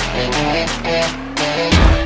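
Background music with a steady beat and a held bass line, with a loud low hit near the end.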